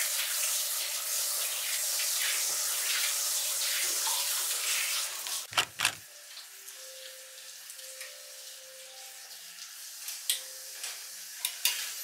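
Water running from a tap in a steady hiss for about five seconds, ending with two sharp knocks. Then the room goes much quieter, with a few faint clicks and knocks.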